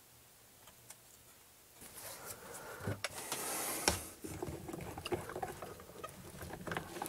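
Near silence for about two seconds, then faint handling noise: light taps and a couple of sharper knocks, with a brief rustling hiss about three seconds in.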